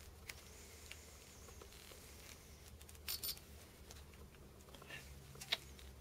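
Faint handling clicks of small metal parts as a multimeter probe tip and fingers work on a metal battery mod: scattered light ticks, a quick double click about three seconds in and a sharper click near the end, over a low steady hum.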